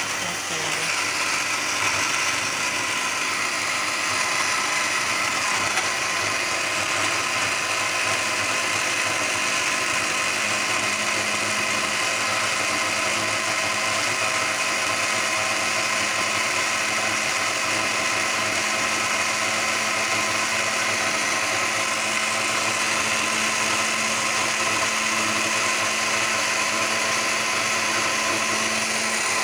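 Electric mixer-grinder running steadily at full speed, its small glass jar wet-grinding raw mango, mint, green chillies and cumin with water into chutney paste.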